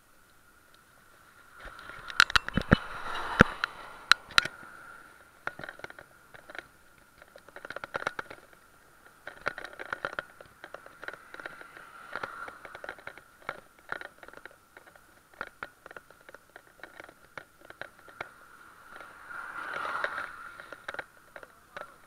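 Mountain bike rolling along a paved road, heard from its handlebars: irregular clicks, knocks and rattles over the road surface, with several swells of wind and road noise.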